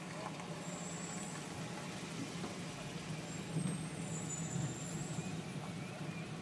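Steady low hum of a car's engine and road noise, heard from a car creeping forward in slow traffic, with a faint high whine twice.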